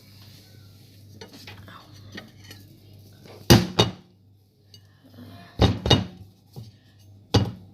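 Metal cutlery clinking and knocking against a plate, several sharp strikes a second or two apart, as a microwaved potato is prodded to test whether it has gone soft.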